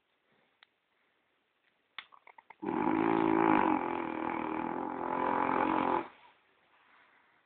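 French bulldog snoring like a person: a few small clicks of the breath about two seconds in, then one long snore of about three seconds that stops abruptly.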